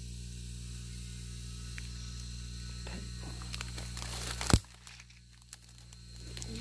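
Faint rustling and small clicks over a steady low hum, then a single sharp bang about four and a half seconds in, after which the hum cuts out.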